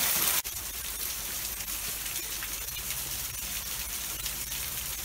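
Water falling from the broken end of a stone aqueduct onto rocks: a loud, close splashing hiss that drops suddenly about half a second in to a fainter, steady hiss.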